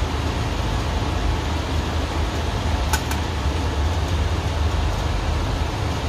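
A steady rushing noise with a low hum, even throughout, and one short light click about three seconds in.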